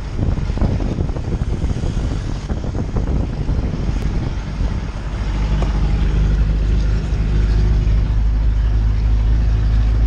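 Passenger jeepney driving along a street, heard from inside the open-sided cabin: loud engine drone and road noise that grows louder and steadier about halfway through.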